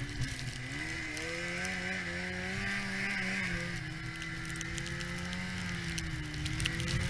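1991 Yamaha Phazer II snowmobile's two-stroke engine running under way through deep powder. Its pitch climbs over the first second or so, holds steady, dips briefly about six seconds in and picks up again, with scattered clicks over it.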